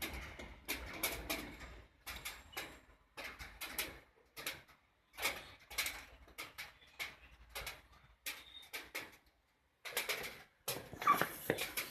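Irregular clicks, taps and light clatter of metal rack cable management panels with plastic rings being handled, with a cluster of louder knocks near the end.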